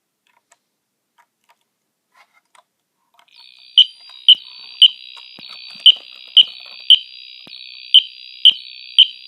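Wheelock NS fire alarm horn sounding on battery power. After a few faint clicks, a continuous high buzz starts about three seconds in, with sharp, loud beeps on top in groups of three, the temporal-three evacuation pattern.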